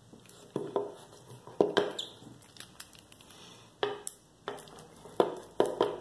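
Old wire cutters biting into the coiled steel cable of a Kryptonite bike lock: about eight sharp, irregular crunches as the jaws squeeze and work into the cable.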